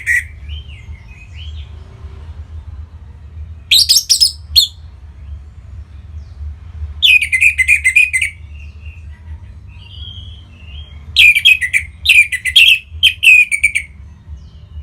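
Orange-headed thrush singing in loud, rich phrases: three bursts a few seconds apart, the last one longest, with softer notes between them. A steady low hum runs underneath.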